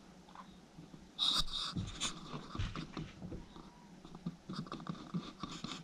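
Raccoons eating from a plastic bowl: wet chewing and smacking with many scattered small clicks. A louder noisy burst comes about a second in and lasts under a second.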